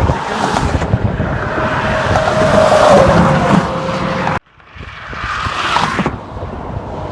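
Freeway traffic rushing past: a vehicle swells by about three seconds in, the sound cuts off abruptly about a second later, then another vehicle rushes past and the road noise settles.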